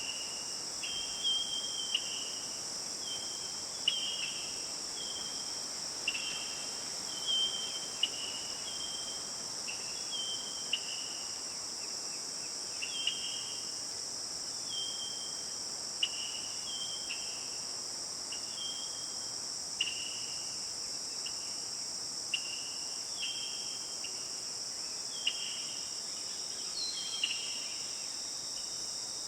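Steady, high-pitched chorus of crickets or other insects, with a short two-note call repeating about once a second and a sharp click every few seconds.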